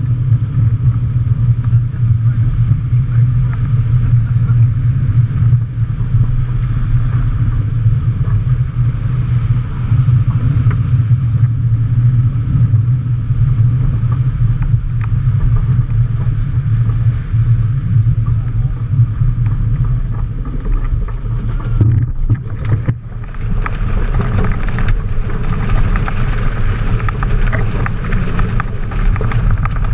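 Heavy wind buffeting on the microphone over the rushing hiss of water and spray along a racing yacht's hull as it surfs downwind at speed. After a brief lull about three-quarters of the way through, the water rush grows brighter and louder.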